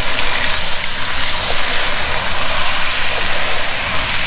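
Hot oil bubbling and sizzling hard around a batch of raw matchstick potatoes just lowered into it for deep-frying: a steady, dense hiss as the water boils out of the potatoes.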